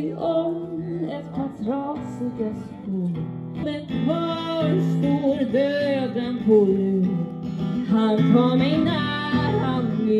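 A woman singing a song live to acoustic guitar, the guitar strummed under a wavering sung melody.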